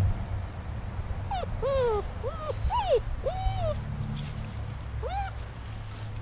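German Shepherd puppies yipping and whining as they play-wrestle: a quick run of about five short, high, arching yelps starting about a second in, and one more near the end.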